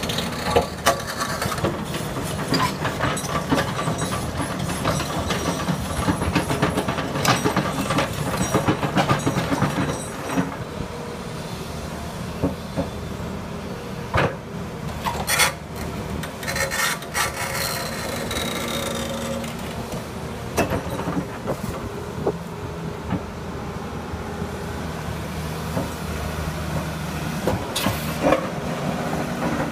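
Volvo crawler excavator's diesel engine running under load as its bucket shoves a large granite block, the stone scraping and grinding over rock and gravel with sharp knocks. The scraping is dense for about the first ten seconds, then thins to scattered knocks over the engine.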